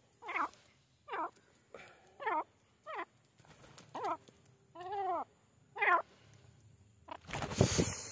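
Grey francolin calling: about seven short, pitched call notes, roughly one a second, each curving in pitch. Near the end comes a loud burst of noise.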